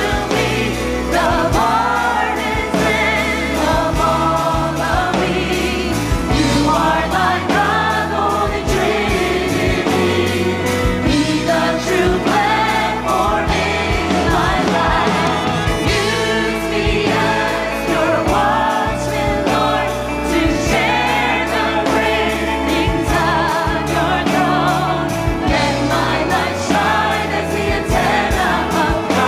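Live worship music: singers at microphones sing a praise song over a band with electric guitar and a steady beat, the lead passing from one female voice to a female and male duet.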